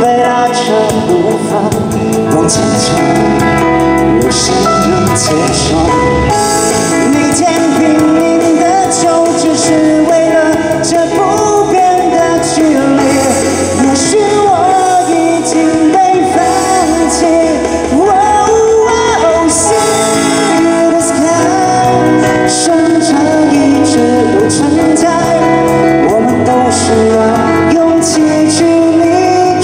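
A live band plays a slow pop song, with a man singing the lead into a microphone over keyboards and drums.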